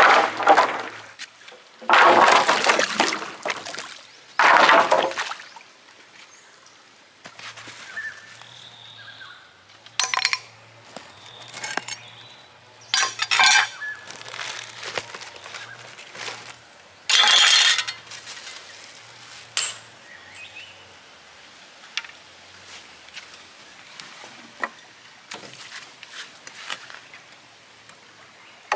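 Wood and branches being broken and handled: several rough, crackling bursts about a second long, three in the first five seconds and another about 17 seconds in, with scattered sharp knocks and clatter between.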